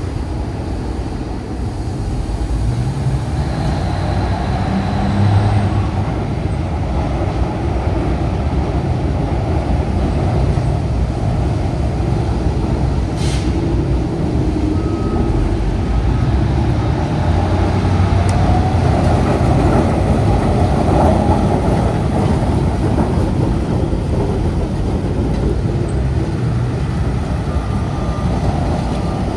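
Diesel work locomotive running as it pulls slowly across a street-level track crossing and passes close by, a steady heavy engine rumble that builds over the first few seconds. A single sharp click comes about 13 seconds in.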